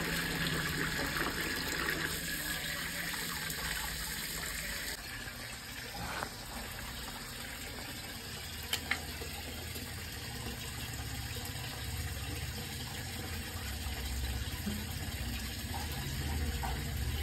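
Tap water running and splashing into a plastic basin while crabs are washed by hand, with more splashing hiss in the first few seconds. Two short clicks come about nine seconds in.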